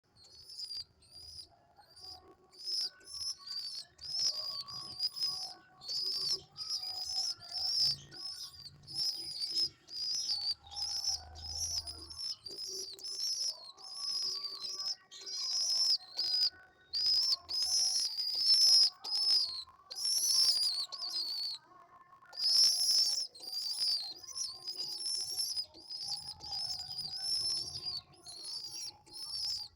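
Pigeon squabs peeping: a quick, continual series of short, high-pitched cheeps, several a second, with a few brief pauses.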